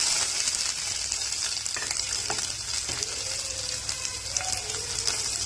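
Sliced onions frying in hot oil, a steady sizzle.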